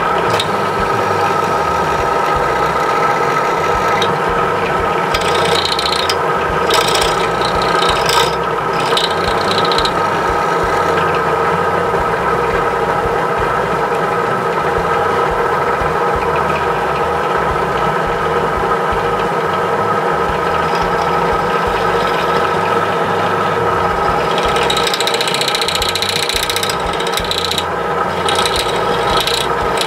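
Drill press motor running steadily with a constant whine while its bit drills out the metal rivet holding a die-cast toy car's chassis together, with stretches of scratchy metal cutting about five seconds in and again from about twenty-four seconds on.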